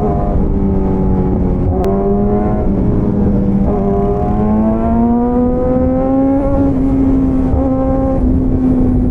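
Motorcycle engine running at a steady cruise, its pitch dipping and recovering twice and then climbing gently before holding, over a heavy low rumble of road and wind.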